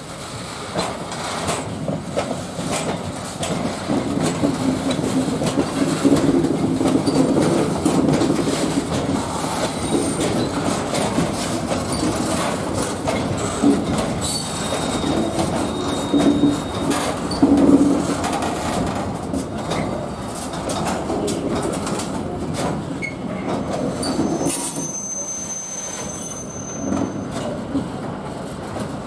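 Freight train of covered steel-coil wagons rolling slowly past, wheels clacking over the rails. Brief high wheel squeals come about halfway through and again near the end.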